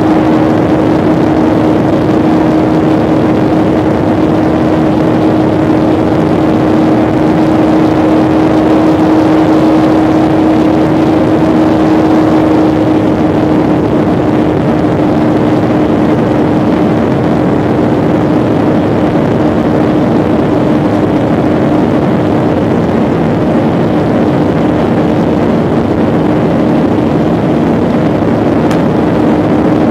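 Airliner engine noise heard from inside the cabin during the take-off flight: a loud, steady rumble with a constant droning hum, and a second, lower drone joining in during the second half.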